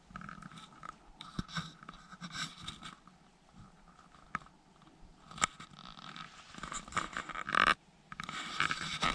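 Close rustling and scraping as someone shifts and handles gear among dry forest litter, broken by a few sharp clicks or snaps, with a brief lull near the end before the rustling picks up again.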